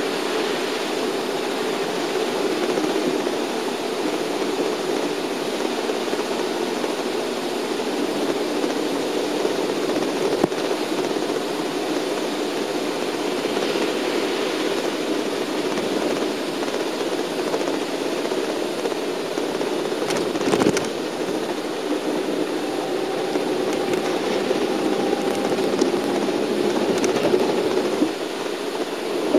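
Steady engine and road noise inside a moving shuttle bus, with tyres on a wet road. A couple of short knocks from the bus going over bumps, one about ten seconds in and a stronger one about twenty seconds in.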